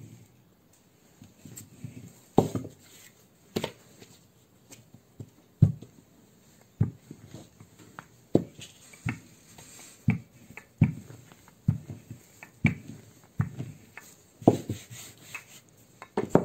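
Wooden rolling pin rolling out a strip of dough on a work surface, knocking and thumping irregularly about once a second as it is pushed back and forth.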